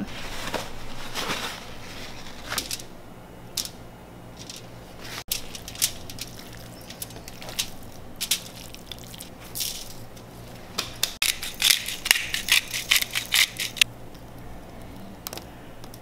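Aluminum foil crinkling and crackling as raw fish fillets are handled and arranged on it, in irregular bursts that grow busiest in a quick run near the end.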